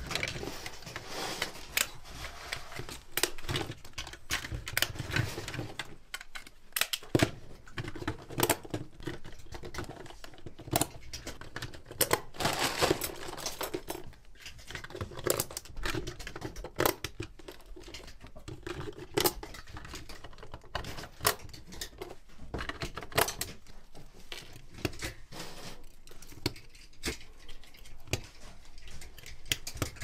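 Irregular sharp clicks, snaps and rustling from hands working small hard parts, a click every second or so with busier stretches in between.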